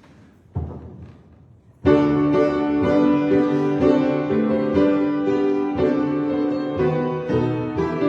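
Piano music starts about two seconds in, with sustained chords and a slow-moving melody. Just before it, a single soft thump.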